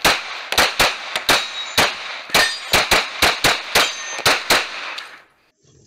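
Rapid 9mm pistol fire from a Glock 19: about fifteen shots, many in quick pairs, stopping about four and a half seconds in. Steel targets ring as they are hit.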